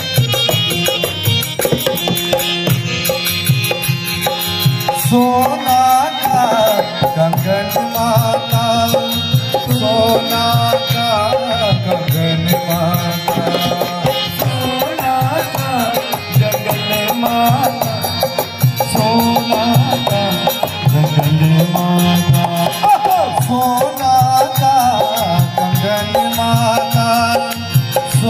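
Kumaoni devotional bhajan music: a harmonium playing the melody in an instrumental interlude over a steady hand-drum rhythm.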